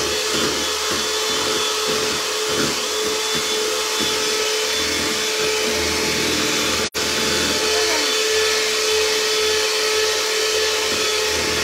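Handheld electric mixer running steadily, its beaters whipping a white cream mixture in a plastic bowl, with a steady whine. The sound cuts out for an instant about seven seconds in.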